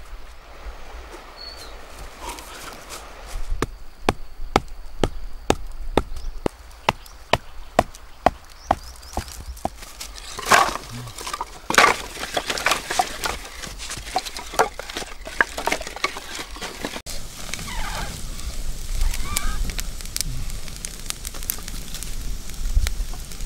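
A long run of sharp wooden knocks, about one or two a second, as sticks of firewood are cut and laid into a pile. After that comes a steadier rustling noise with a few short calls.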